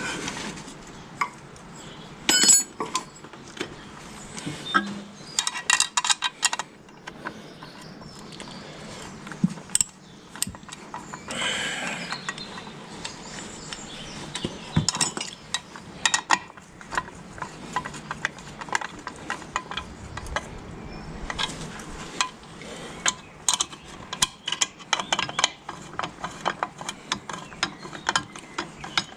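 Metal tools and parts clinking and knocking on the brake linkage of a 1955 Fordson Major tractor, with quick runs of clicks like a ratchet spanner being worked. The clicks come in irregular bursts, densest a few seconds in and again near the end.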